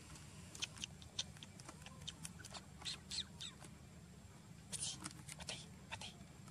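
Faint, scattered short high-pitched animal squeaks and chirps, in clusters about a second in, around the middle and near the end, over a low steady background hum.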